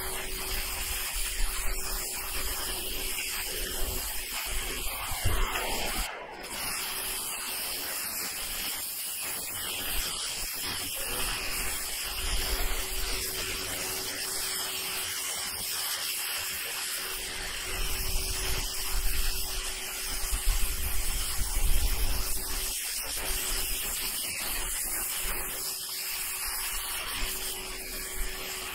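Water jet from a Ryobi 1600 psi electric pressure washer with a turbo nozzle hissing steadily against asphalt roof shingles, blasting off moss. A steady low hum runs underneath.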